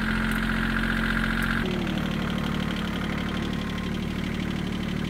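Compact tractor engine running steadily under the driver. Its note drops slightly about one and a half seconds in.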